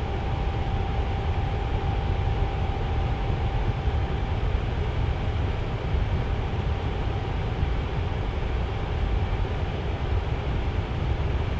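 Tower fan running steadily: an even rush of air, strongest in the low end, with a faint thin hum that fades out about two seconds in.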